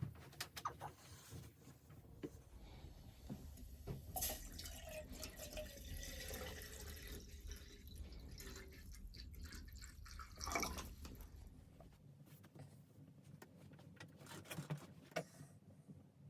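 Liquid pouring into a container for several seconds, its pitch gliding as it pours, with small clicks and knocks before and after and a sharper knock near the end of the pour.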